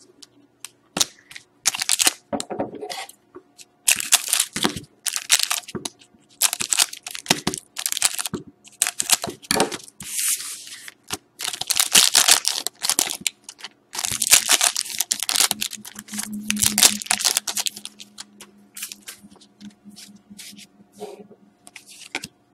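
2012-13 Rookie Anthology hockey card packs being torn open by hand: a series of crackling rips and crinkles of the foil wrappers, in irregular bursts.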